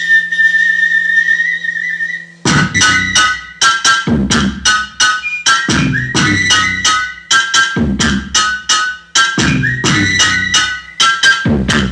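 A steady high whistle-like tone over a low hum, then, about two and a half seconds in, loud electronic dance music with a punchy beat and repeated synth stabs played through a home sound system with a 100 W RMS amplifier.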